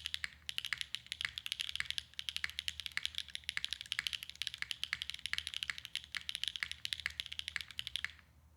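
Fast, continuous typing on a custom Neo65 Cu mechanical keyboard with HMX Sugar Rush linear switches, a polypropylene plate in an isolated top mount, and GMK keycaps: a clacky yet full-bodied keystroke sound. The typing breaks off briefly just after the start and stops abruptly near the end.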